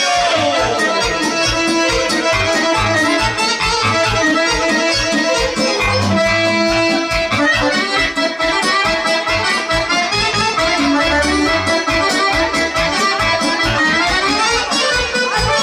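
Guerrini piano accordion playing a fast folk melody over a steady band beat, with a quick falling run at the start and a rising run near the end.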